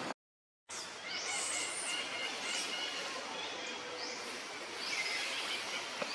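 Outdoor ambience: a steady hiss with short, high rising chirps about once a second, after a brief dropout just after the start.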